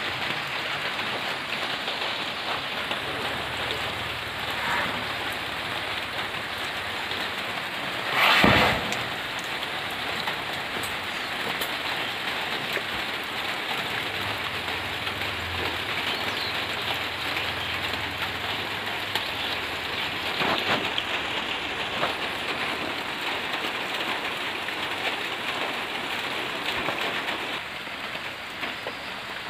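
Steady rain falling, an even hiss, with a brief loud burst of noise about eight seconds in.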